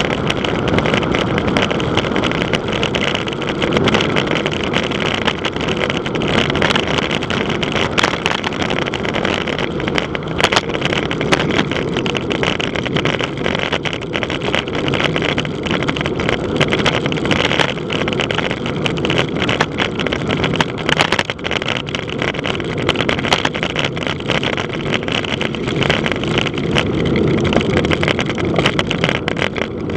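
Wind rushing over the microphone of a cyclist riding fast downhill: a loud, steady rush with frequent crackles from buffeting.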